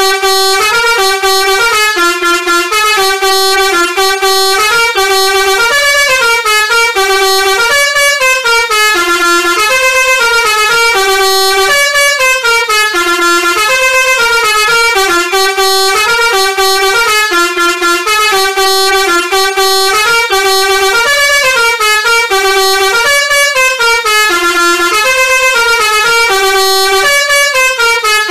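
Indonesian telolet bus horn playing a tune, one note straight after another, with the melody repeating over and over without a break.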